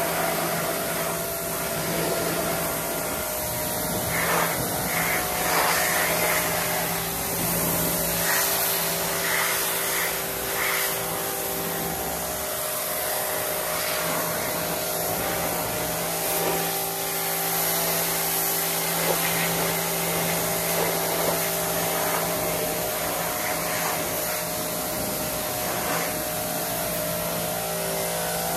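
Pressure washer running with a steady motor-and-pump hum, its water jet spraying and spattering against a motorcycle's drive chain, sprockets and swingarm as it rinses off the cleaning product and grime.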